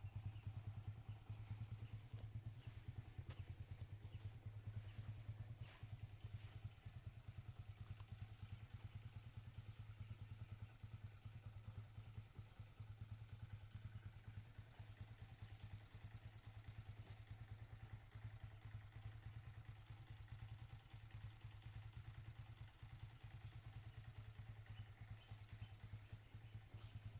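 Diesel engine of a Case 570ST backhoe loader idling steadily, heard faintly, with a steady high hiss over it.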